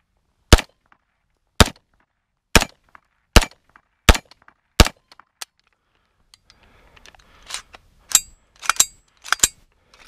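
KE Arms AR9 9mm pistol-calibre AR firing single shots in a steady string, about six shots roughly a second apart, cycling each round without trouble during its break-in. Near the end there are a few sharp clacks.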